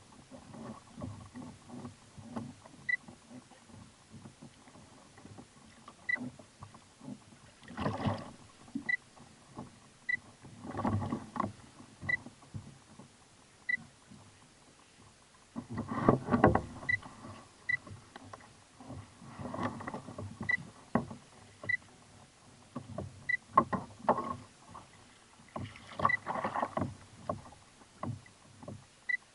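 Irregular bursts of knocking, rustling and splashing as a large corvina, about 10 kg, is handled aboard a kayak; the loudest burst comes a little past the middle. A faint short high pip repeats about once a second throughout.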